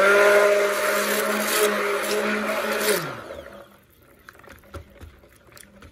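Electric stick blender running steadily in cold-process charcoal soap batter, then switched off about three seconds in, its motor winding down with a falling pitch. Light knocks follow as the blender head is moved about in the plastic bucket.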